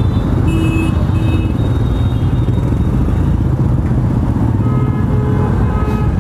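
Motorcycle engines idling and running in dense, stop-start traffic, a steady low rumble. Short horn beeps sound twice about half a second in, and a few more near the end.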